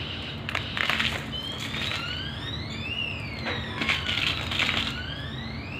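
Short, dry crunching bursts of a homemade crispy, gritty texture being crushed. Behind them a siren wails in slow sweeps, rising and falling about every one and a half seconds.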